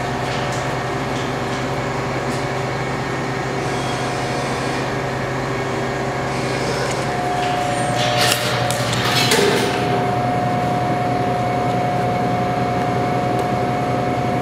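Steady mechanical hum with a few thin steady tones, and a brief clatter of knocks about eight to nine and a half seconds in.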